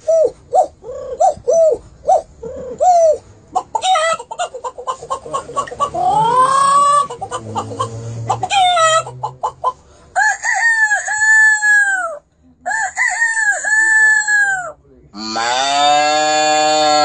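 Fowl calling: a quick run of short clucking notes, then a rising call, and several drawn-out crow-like calls, the last and loudest starting about fifteen seconds in.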